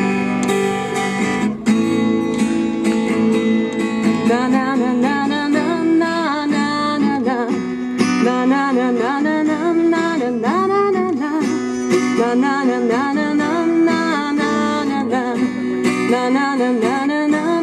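Live song intro: acoustic guitar strumming steady chords, with a wordless melody line gliding over it from about four seconds in.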